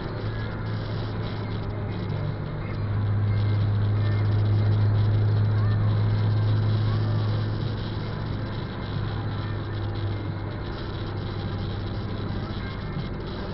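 Car cabin noise while driving on a wet highway: a steady low engine and road drone, which grows louder for a few seconds in the middle and then settles back.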